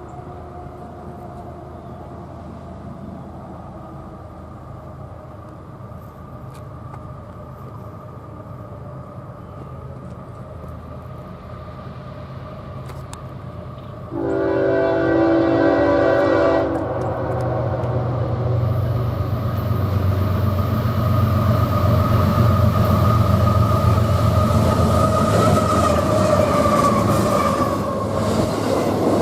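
A train approaching with a steady low engine hum, then one horn blast of about two and a half seconds, sounding several tones at once, about halfway through. After the blast the train passes close by with a louder rumble and the hiss of wheels on rails.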